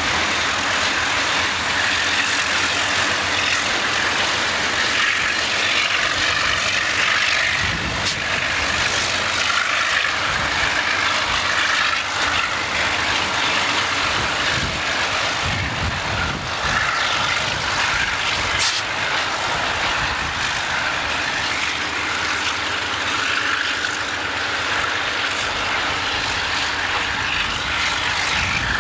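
Diesel yard switcher locomotive running steadily, heard mostly as a dense, even noise, with two brief clicks about 8 and 18 seconds in.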